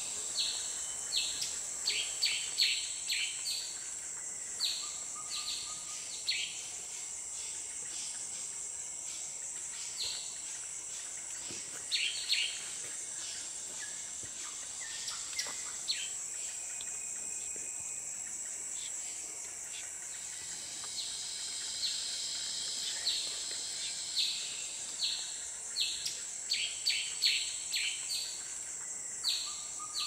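Tropical rainforest ambience: a steady high-pitched insect drone, with bursts of short, sharp chirps repeated several times a second, thickest at the start and again over the last third.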